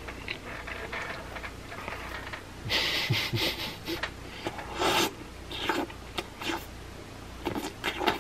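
Close-up eating sounds: a string of melted cheese from a mozzarella stick being sucked in with short noisy slurps, about three seconds in and again about five seconds in, then wet mouth clicks of chewing.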